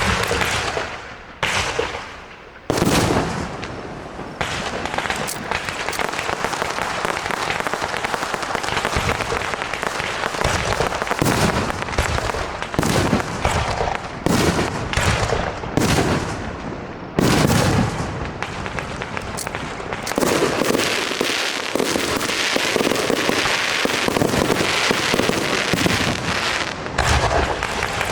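Aerial fireworks display: a dense, continuous crackling with many loud bangs going off one after another, several sharper booms standing out.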